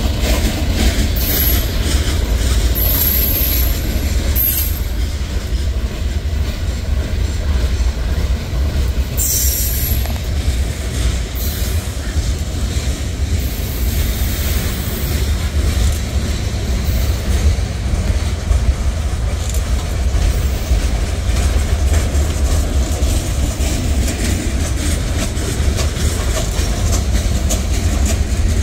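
Freight cars of a CSX manifest train rolling past, a steady low rumble of steel wheels on rail. Brief high-pitched wheel squeals come several times in the first ten seconds, the loudest about nine to ten seconds in.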